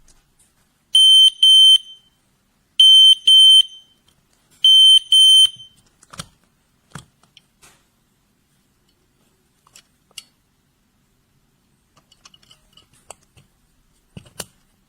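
Smoke alarm going off, set off by test smoke: three groups of loud, high-pitched beeps, two or three quick beeps each, about two seconds apart, then it stops. A few faint knocks follow.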